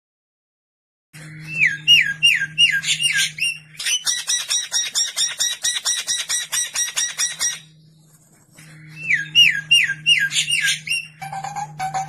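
Recorded songbird song with harsh, rapid phrases. After about a second of silence comes a run of quick down-slurred whistles, then a long fast series of harsh repeated notes. The same whistle run returns about two-thirds of the way through, followed by lower repeated notes, over a faint steady low hum.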